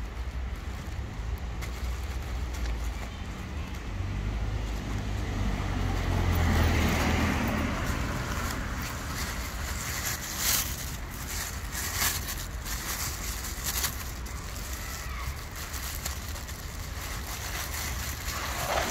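Steady rumble of road traffic, with a vehicle passing about six to eight seconds in. From about ten seconds on come scattered sharp crinkles and clicks of a plastic bag being handled.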